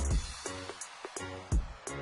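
Background music with drums: a deep bass note that stops just after the start, then sparse chords and a few kick-drum hits.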